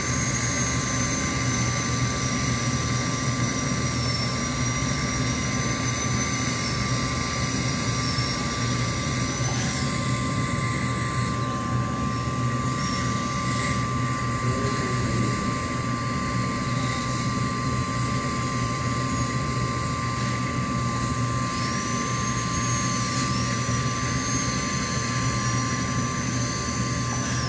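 High-speed dental drill whining, its pitch wavering and dipping as it cuts into a tooth for a filling, over the steady roar and hiss of the dental suction. The drill stops about ten seconds in and runs again briefly a little past twenty seconds.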